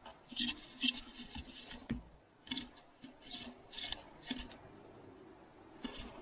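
Handling noise of an extended monopod carrying an action camera: short, irregular scraping and rubbing strokes, a few a second, easing off for about a second near the end before starting again.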